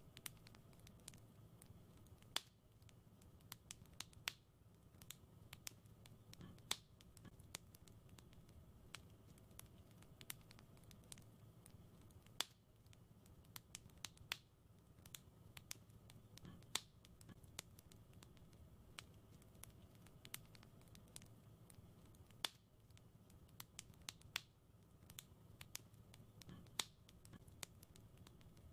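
Wood fire crackling quietly: irregular sharp pops and snaps, several a second, with an occasional louder crack, over a faint steady low background.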